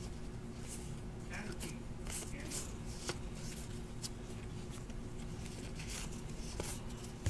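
Baseball trading cards being slid and flicked through by hand, one soft swipe after another, about two a second.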